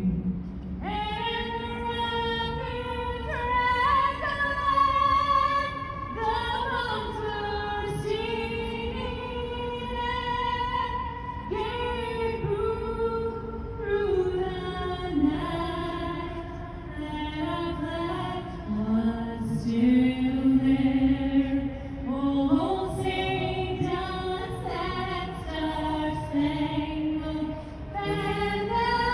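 Female voices singing a song, with long held notes that rise and fall.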